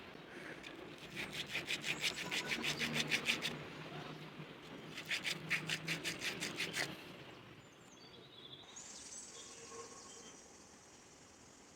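Quick back-and-forth abrasive strokes on a small wooden spoon, about five a second, in two runs of roughly two seconds each, as in hand-sanding or rasping the wood. Faint bird chirps follow.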